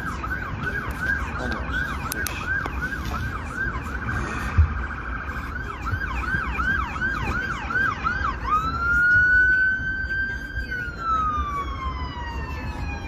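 Emergency vehicle siren, first in fast yelp mode, a quick falling whoop about three times a second, then switching about eight seconds in to a slow wail that rises and falls. Underneath runs a steady low rumble, with a single short knock about four and a half seconds in.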